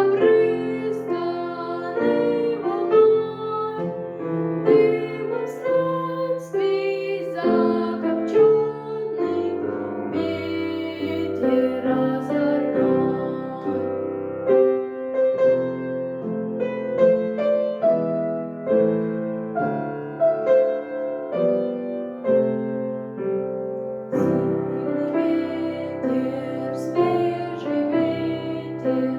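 Piano music: a piece played on the piano, several notes sounding together.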